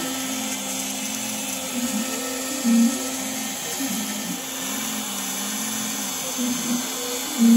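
CNC router's compact router spindle running with a 1/16-inch upcut bit carving a pocket in plywood. It is a steady motor whine that wavers in pitch as the bit moves through the cut, with a brief louder surge about three seconds in and another at the very end.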